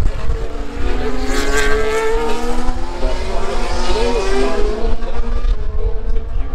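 A 2024 Formula 1 car's turbocharged V6 hybrid engine running on track at speed, its note wavering, with a short rise and fall about four seconds in.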